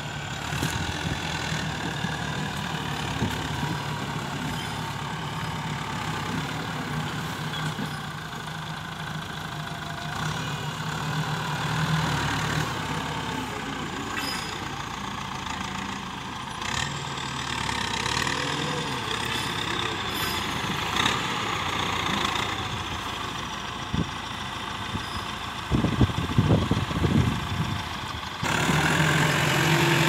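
Ford 7740 tractor's diesel engine running under load as it pulls a three-disc plough through hard, dry soil, its pitch rising and falling a little. Near the end come a few loud low thumps, and then the engine sounds louder and closer.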